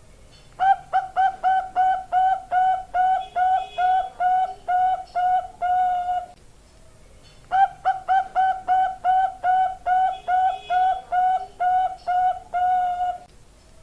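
Bangkok-type zebra dove (perkutut) cooing: two long runs of quick, evenly spaced coos, each ending on a longer drawn-out note, with a pause of about a second between them.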